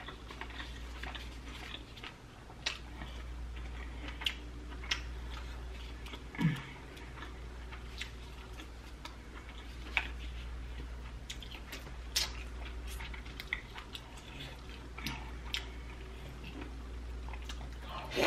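Close-miked eating sounds: scattered wet clicks and smacks of chewing and handling saucy curry seafood boil with gloved hands, with a brief low "mm" about six seconds in. A low steady hum sits underneath.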